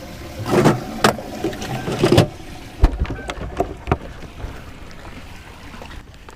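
Handling sounds aboard a fishing boat on the water: a few brief scrapes and clicks and a low knock about three seconds in, over a steady wash of wind and water.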